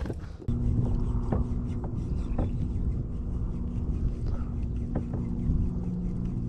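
A steady low mechanical hum holding a few even pitches over a low rumble, with a few faint ticks. It starts abruptly about half a second in.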